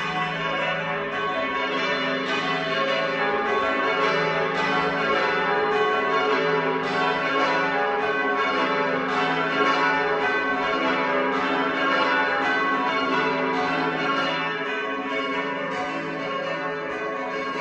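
A heavy ring of six church bells, tenor 18 cwt 3 qr 18 lb in E, being rung down. The bells strike rapidly and overlap in a continuous jangle of tones, heard from outside the tower.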